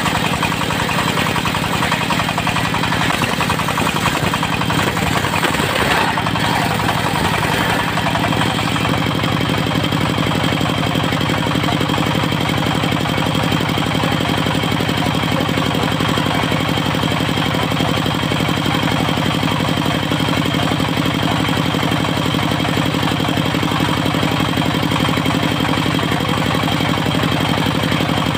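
Diesel engine of a portable circular-saw sawmill running steadily at constant speed, rougher and noisier for roughly the first eight seconds, then settling to an even hum.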